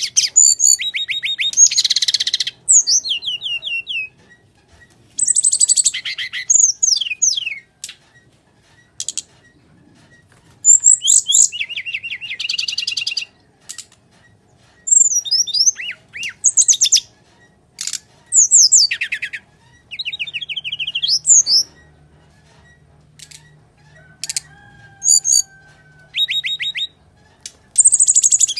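Brown-chested jungle flycatcher (SRDC) singing its full 'tarung' fighting song: loud phrases of rapid chattering trills and sharp rising and falling whistles, one after another with short pauses between them.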